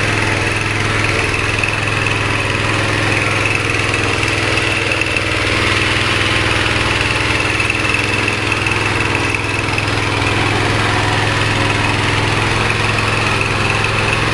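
Small 5.5 hp petrol engine running steadily, driving a horizontal pellet mill.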